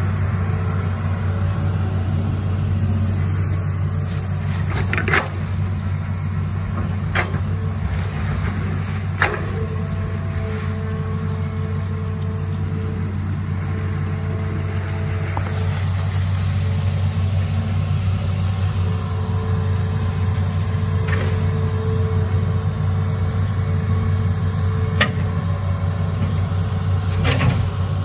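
Hitachi Zaxis 210F amphibious excavator's diesel engine running steadily as it digs, with a higher whine coming in twice. Several sharp clanks sound as the bucket and arm work the river mud.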